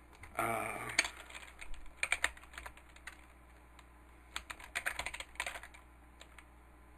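Computer keyboard typing in two short bursts of keystrokes. A brief hum-like sound comes just before, about half a second in.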